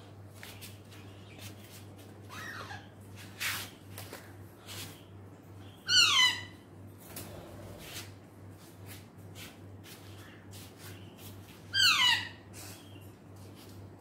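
Parakeet giving two loud, harsh calls about six seconds apart, each falling quickly in pitch, with a fainter call earlier and scattered light clicks between.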